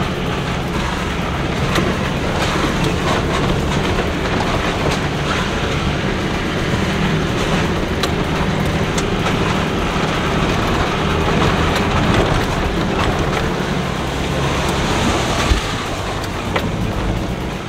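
Nissan Patrol GU four-wheel drive working along a rough, muddy track: the engine runs with a steady drone while the body rattles and knocks over the ruts, with one sharper knock near the end.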